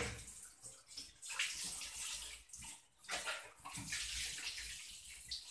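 Water running and splashing in irregular spurts, like a tap in use nearby.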